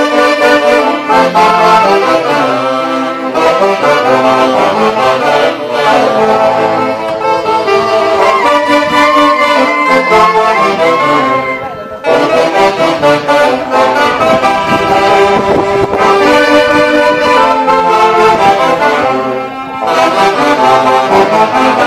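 Lively dance music from wind instruments playing a reedy, brassy tune. It drops out briefly about halfway through and starts again.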